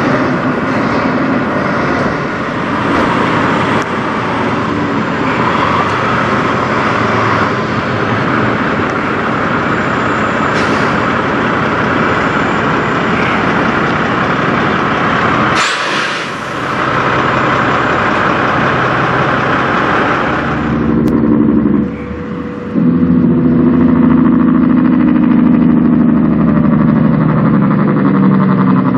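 Diesel semi-truck engines running as the trucks move off, heard across several separate clips. In the last several seconds a heavy truck's engine runs loud with a deep, steady drone.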